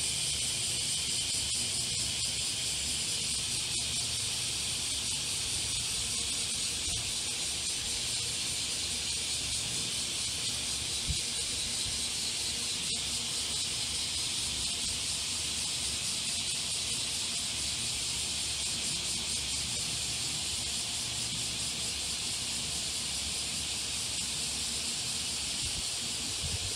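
Chorus of many cicadas buzzing together, a steady, high-pitched drone.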